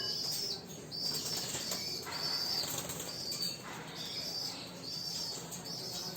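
Monk parakeet chick giving repeated begging calls, about nine short high calls in a row, one every half second to second, typical of a chick wanting to be hand-fed.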